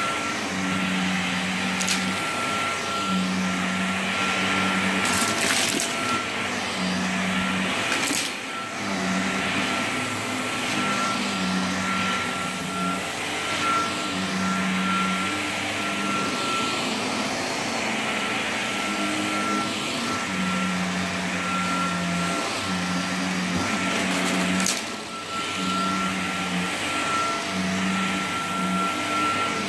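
Cordless stick vacuum cleaner running on a shaggy rug: a steady motor whine with a lower drone that swells and fades every second or so as the floor head is pushed back and forth. A few brief knocks come through.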